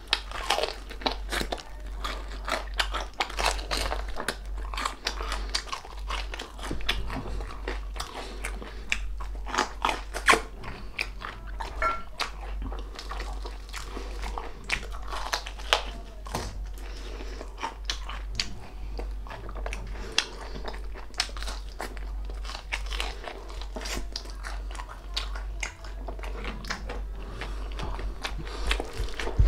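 Close-up eating of crispy deep-fried pork knuckle: many irregular sharp crunches as the crackling skin is bitten, with chewing between. A steady low hum sits underneath.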